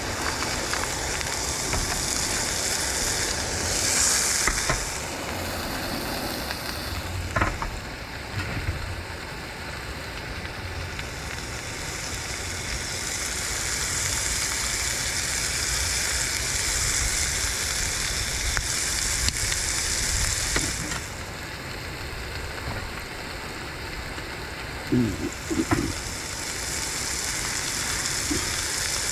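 Food frying and sizzling in a hot pan, the hiss swelling and easing, with a few short knocks, one about a quarter of the way in and a couple near the end.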